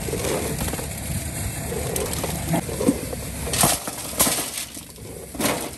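Dried maize cobs rattling and scraping in a metal basin as it is emptied and handled, with a few sharp knocks of cobs against the metal in the second half.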